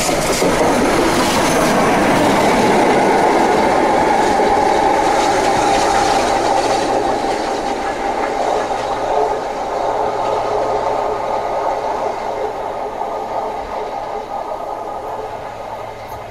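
Rebuilt Bulleid West Country class 4-6-2 steam locomotive 34046 'Braunton', running light without carriages, passing at speed, its wheels clattering over the rail joints. The sound is loudest in the first half and fades steadily as the engine draws away.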